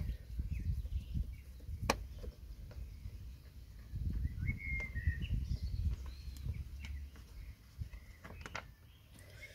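Quiet handling and scraping as a Torx screwdriver works a screw out of a car seat's plastic side trim, with one sharp click about two seconds in.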